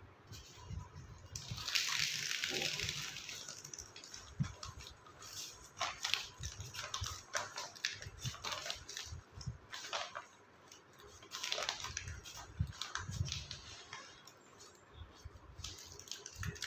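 Black polythene nursery grow bag rustling and crinkling as it is handled and pulled open around a plant's root ball, with a longer hiss of plastic early on, then irregular crackles and a few soft thuds of handling.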